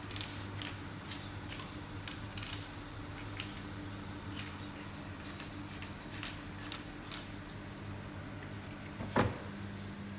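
Scattered small clicks and taps of objects being handled, over a steady low electrical hum, with one louder knock about nine seconds in.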